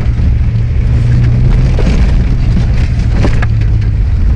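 Car engine droning steadily inside the cabin while driving over a rough, muddy dirt track, with scattered knocks and rattles from the bumps, most of them around the middle.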